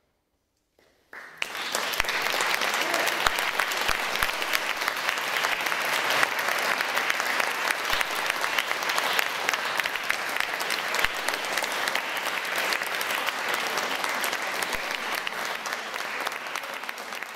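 Audience applauding. The clapping breaks out about a second in after near silence, holds steady, and eases slightly near the end.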